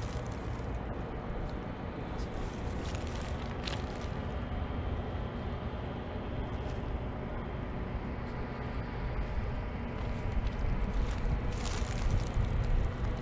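Steady low rumble of idling diesel engines on the LORAM maintenance-of-way crosstie train, with a few brief hisses. Gusts of wind on the microphone swell near the end.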